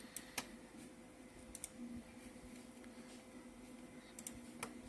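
Computer mouse clicks: a few sharp, quiet clicks, some in quick pairs, over a faint steady hum.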